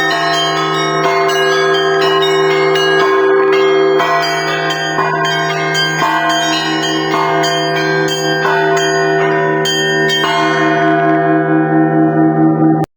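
Russian Orthodox church bells rung in a peal: small bells struck in quick patterns over the long ringing tones of larger bells. About ten seconds in the striking stops and the bells ring on, wavering as they fade, until the sound cuts off abruptly near the end.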